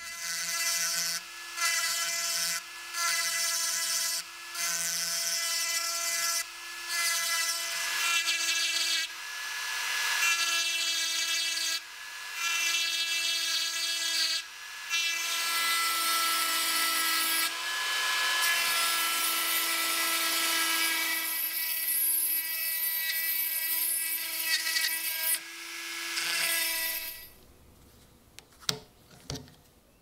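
Handheld rotary tool whining at high speed as its small bit grinds at the rusty pocket knife. It runs in short spurts of about a second at first, then in longer stretches, and stops near the end, followed by a few light clicks.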